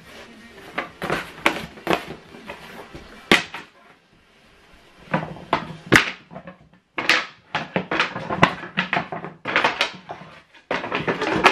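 Flat-pack desk panels being picked up, moved and set down on the floor, giving irregular knocks and clatters of board against board, with a quiet pause about four seconds in and a sharp knock about six seconds in.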